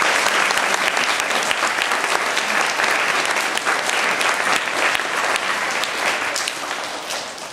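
An audience claps together in sustained applause. The clapping dies away near the end.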